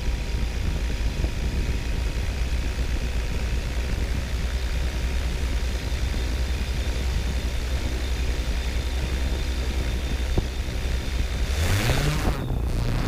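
Yuneec Typhoon G quadcopter's electric motors and propellers spinning at idle while it sits on the ground, a steady hum. Near the end the motors spool up with a rising pitch as it lifts off.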